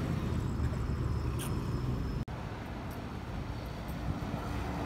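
Steady low outdoor background rumble with no distinct events, broken by a momentary drop-out about two seconds in.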